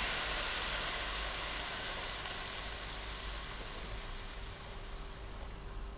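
Water pouring from a glass jug into a hot pan of frying vegetables, with a steady sizzling hiss that gradually dies down as the pan fills.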